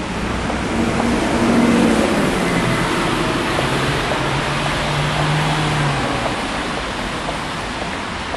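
Road traffic on a rain-wet street: tyres hiss on the wet tarmac over a passing vehicle's engine hum. The hiss swells to its loudest about two seconds in and eases off near the end.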